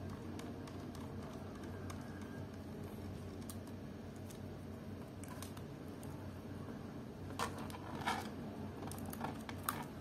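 Light clicks and scrapes of a laptop hard drive in its metal caddy being worked loose and slid out of its bay, with a few sharper clicks in the last three seconds.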